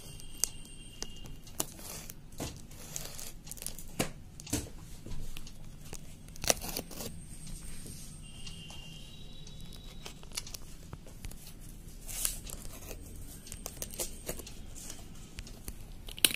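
A small blade slitting clear packing tape along the seams of a cardboard box. Irregular scraping and tearing strokes are mixed with tape crinkling and sharp clicks.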